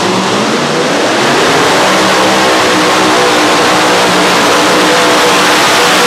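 Unlimited-class pulling tractor's multiple supercharged engines revving up at launch, rising in pitch over the first second and a half. They then run loud and steady at full power under load as the tractor drags the weight sled.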